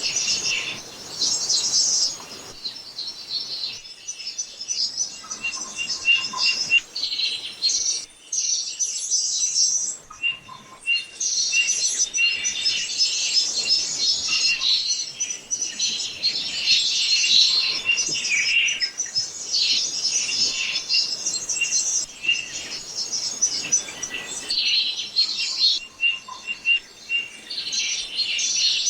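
Small birds chirping and tweeting continuously, many quick high chirps overlapping in dense clusters with brief lulls, like a flock of songbirds.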